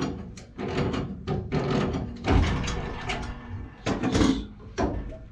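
Irregular knocks and clatter of hands and tools working at the top of a water heater tank.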